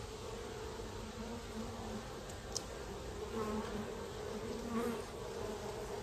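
Many honey bees buzzing around an open hive: a steady hum that wavers in pitch.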